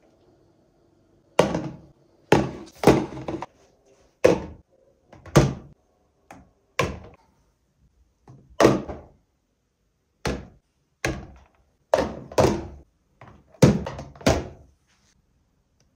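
Glass jam and honey jars set down one after another into clear plastic organiser bins: about fifteen short clunks at an uneven pace, starting about a second and a half in.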